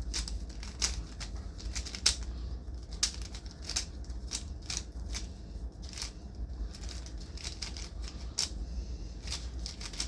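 3x3 Rubik's cube being turned fast by hand, its layers clicking and clacking in quick, uneven runs over a low steady hum.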